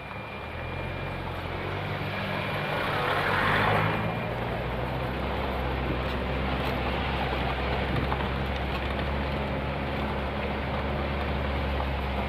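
Vehicle engine running steadily, with road and wind noise, heard from inside the moving vehicle; a louder rush of noise swells about three to four seconds in.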